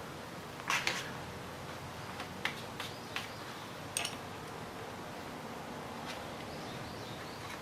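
A few short, light clicks and taps of a pin being worked in a hole in a jackshaft bearing, trying to turn the bearing in its housing to check whether it has spun. They come in a cluster about a second in and then singly over the next few seconds, over a steady low background hiss.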